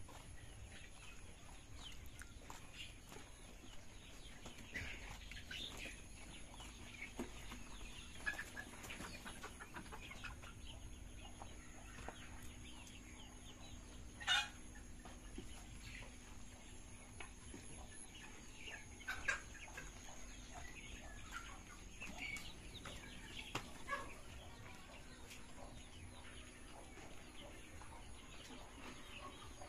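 A flock of free-range chickens clucking softly, with short scattered calls throughout. One sudden sharp sound about halfway through is louder than the rest.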